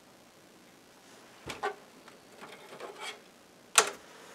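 A couple of soft clicks and faint ticking as the Amiga 3000T board is powered up, then one sharp, loud crack near the end: a power decoupling capacitor on the motherboard blowing, the same one that failed before.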